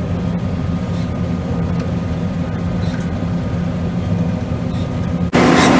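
John Deere 9500 combine running steadily while cutting wheat, a low hum with a steady engine tone. About five seconds in, the sound cuts abruptly to a louder, brighter run of the machine.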